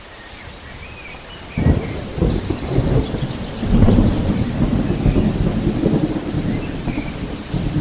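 Steady rain with a long roll of thunder that breaks in about one and a half seconds in and rumbles on.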